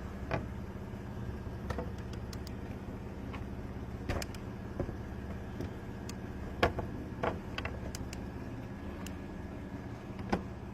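Steady low hum of a running vehicle, with scattered sharp clicks and taps of lockout tools working a car's door lock.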